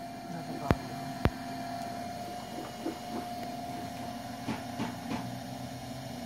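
Electric potter's wheel running at a steady speed, its motor giving a hum with a thin steady whine while wet clay is centered on the spinning wheel head. Two sharp clicks within the first second and a half, and a few faint ticks later.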